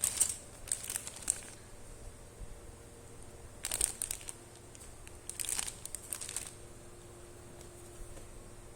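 Plastic packaging crinkling as it is handled, in three short spells of rustling.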